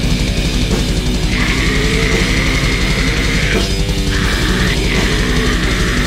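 Grindcore music: loud, dense distorted guitar and drums playing without a break.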